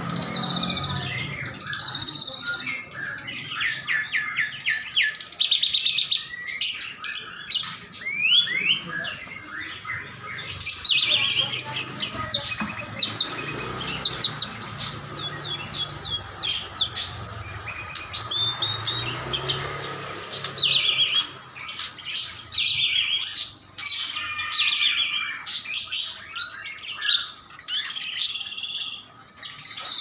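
Many caged songbirds and pet parrots chirping, trilling and calling at once, a dense chorus of overlapping high-pitched notes.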